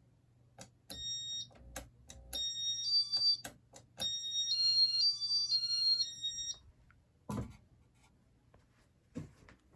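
Button clicks and electronic beeps from a Casablanca IntelliTouch ceiling fan wall control: sharp clicks, short high beeps, then from about three seconds in a run of beeps stepping between a few pitches like a short tune. Two louder knocks follow near the end.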